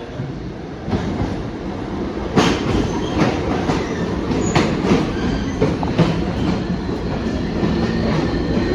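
New York City subway train running along the track, its wheels clacking irregularly over rail joints and switches. It grows louder over the first few seconds and then stays steady, with a faint whine running under the rumble in the second half.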